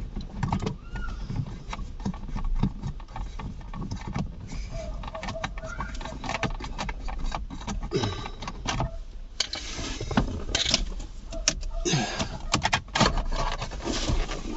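Scattered clicks, knocks and light rattles of hand work on parts and trim under a car's steering column, busier in the second half, over a low steady hum.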